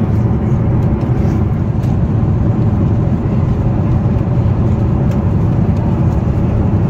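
Boeing 747-8i passenger cabin noise in flight: the engines and rushing air make a steady, loud low roar with no change in level.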